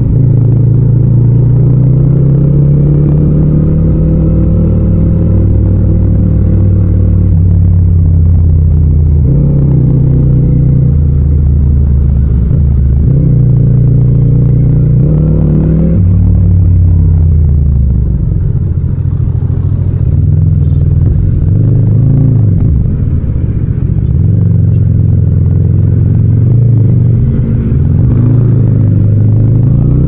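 Yamaha MT-07's 689 cc parallel-twin engine under way, heard from the rider's seat: it revs up, drops in pitch at each of several upshifts, falls as the throttle is rolled off past the middle, and rises again near the end.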